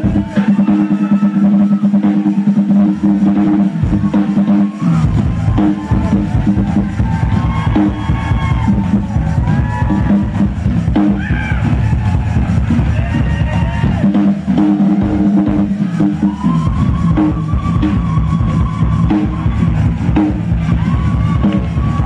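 Live drum solo on a Ludwig acoustic drum kit: fast, dense strokes around the toms and snare, with bass drum strokes joining about five seconds in and running on with the rolls.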